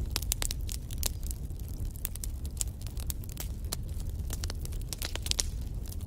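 Wood fire burning in a fireplace, crackling and popping with irregular sharp snaps over a steady low rumble of the flames.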